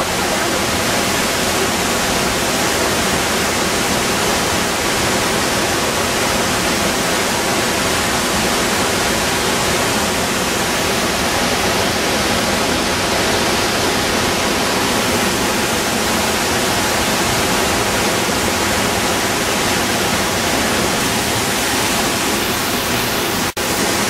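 La Fortuna Waterfall's water plunging into its pool, a loud steady rush. The rush cuts out for an instant near the end.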